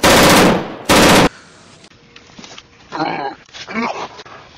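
Two loud bursts of gunfire sound effect about a second apart, each a rapid rattle lasting about half a second. About three seconds in, a person's voice sounds twice, without words.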